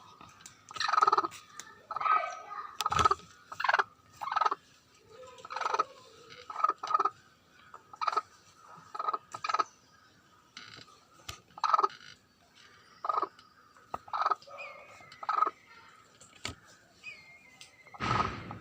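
Broody hen clucking over and over, short calls coming about once a second.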